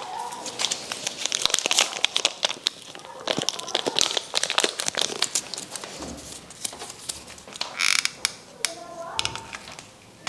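Craft paper crinkling and rustling as it is handled, with many small irregular clicks and crackles and a short hiss about eight seconds in.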